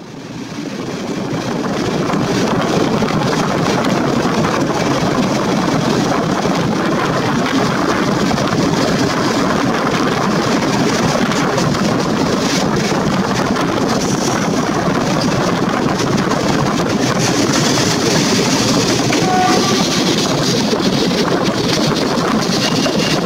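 Passenger train running on the rails, heard from an open carriage window: a steady, loud rumble of wheels on track mixed with rushing wind. It fades in over the first two seconds, then holds steady.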